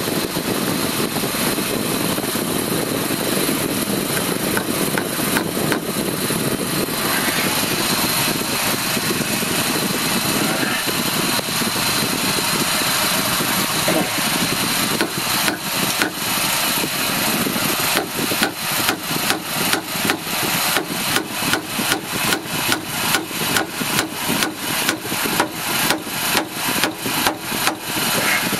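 Steady whir of a fan throughout. From about halfway, light taps about twice a second as a wire staple is driven into a wooden frame to hold plastic mesh screen.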